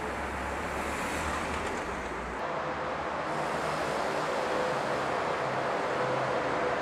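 Small smart fortwo city car driving, a steady rushing noise of engine and tyres; a deep hum under it drops away about two and a half seconds in.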